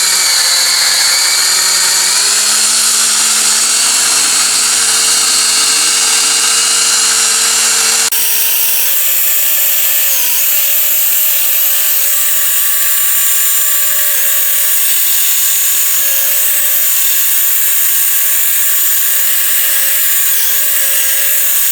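Cordless drill spinning a Mothers PowerBall foam polishing pad against a plastic headlight lens, running steadily at polishing speed. Its whine changes abruptly about eight seconds in, then holds with small dips in pitch as the pad is pressed on the lens.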